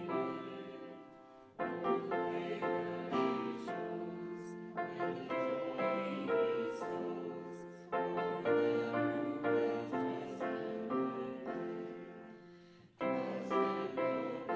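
Solo piano playing a slow piece, chords struck and left to ring and fade before the next.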